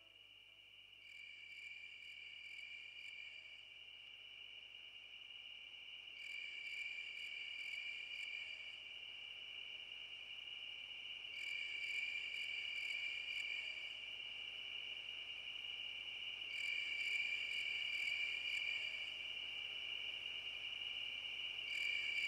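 Crickets chirring in a steady high trill, with a brighter pulsing layer that swells in about every five seconds, slowly growing louder.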